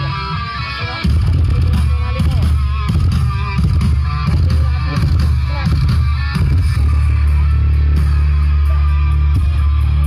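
Guitar-led music played loud through a large outdoor sound system during a sound check, with very heavy deep bass that comes in hard about a second in and a long held bass note in the second half.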